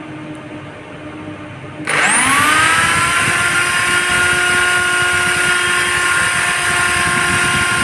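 Electric drill switched on about two seconds in, its whine rising quickly as the motor spins up, then running steadily at full speed. A fainter steady hum before it starts.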